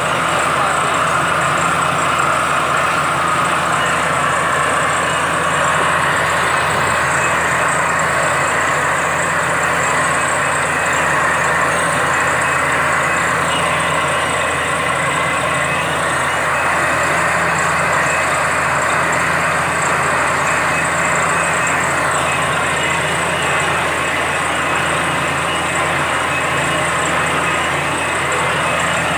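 Truck-mounted borewell drilling rig running steadily under load: engine and air compressor running while the down-the-hole hammer drills, compressed air blasting water and cuttings out of the hole.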